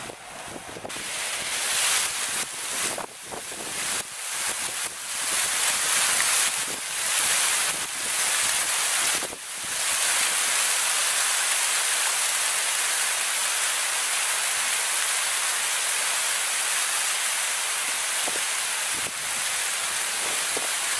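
Rows of fountain jets spraying up out of a shallow pool and splashing back. The water hiss builds over the first couple of seconds and surges unevenly as more jets come on, then settles into a steady rush from about ten seconds in.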